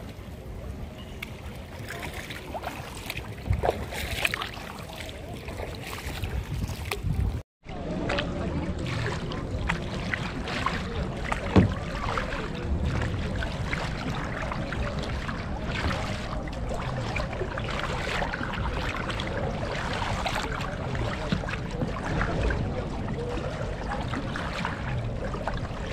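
Kayak paddles dipping and splashing in the canal water in irregular strokes. The sound drops out completely for a moment about seven and a half seconds in, then goes on.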